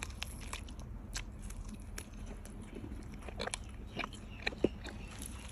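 Chewing and biting into crispy roast suckling pig, with irregular sharp crunches of the crackling skin, the loudest a little past halfway.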